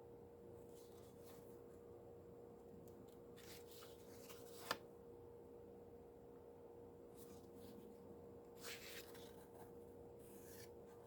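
Near silence with a faint steady hum, broken by a few soft rustles of paper being handled and one light tap a little under five seconds in.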